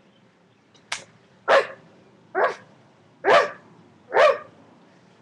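Five short dog-like barks, spaced a little under a second apart, the first one very brief and sharp.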